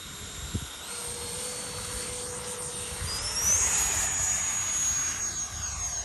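Electric ducted fan of a Freewing L-39 RC jet (Wemotec fan, HET motor, 8S battery) spooling up for the takeoff roll. A high whine steps up in pitch about a second in, then climbs sharply to full power a little after three seconds and holds there with a rushing sound.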